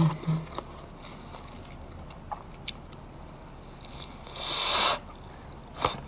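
Eating sounds: a crunchy bite into battered fried food about four seconds in, with a few small clicks of metal chopsticks and a sharp click near the end.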